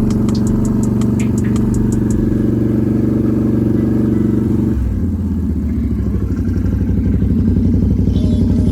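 Can-Am Renegade 1000 XMR ATV's V-twin engine running at steady raised revs, then dropping to a lower, pulsing idle about five seconds in. Fast light ticking over the engine in the first two seconds.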